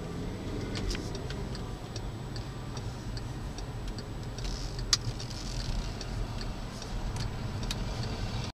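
Car turn signal ticking steadily inside the cabin over low engine and road rumble, with one sharper, louder click about five seconds in.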